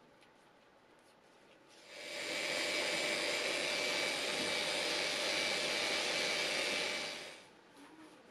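Random orbital sander running on a cover plate with a Makita dust extractor drawing through its hose: a loud, steady whirring hiss that fades in about two seconds in and fades out near the end.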